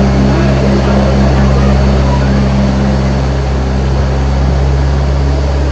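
Zoo tram running steadily along a paved path, giving a steady low hum with road noise.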